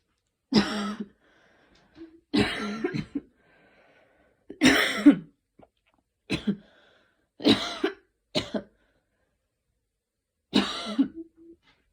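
A girl sick with a cold coughing repeatedly: about seven separate coughs, spaced one to two seconds apart, some with a voiced, throaty edge.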